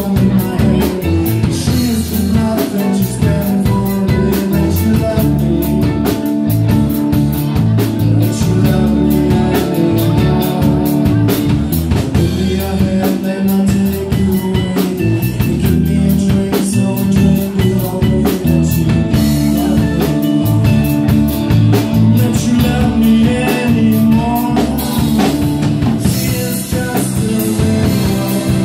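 Live rock band playing with drum kit, electric guitars and bass, a harmonica blown into the vocal microphone carrying the lead line.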